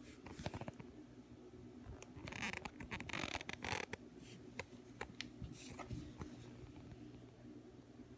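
Steady low hum of an aquarium air pump driving bubbling sponge filters, with scratching, rubbing and clicking from the handheld camera being moved, loudest between about two and four seconds in.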